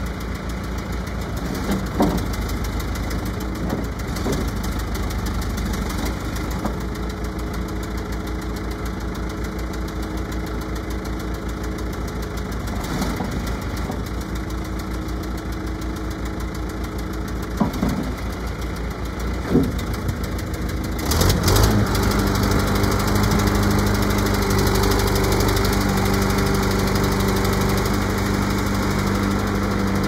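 John Deere 410D backhoe loader's diesel engine idling steadily, with a few sharp knocks from the working machine. About two-thirds of the way through, the engine speeds up and gets louder and stays there as the hydraulics are worked to raise the loader bucket.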